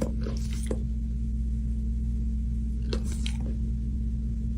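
A steady low machine hum with several tones, with a few short crunchy noises near the start and about three seconds in.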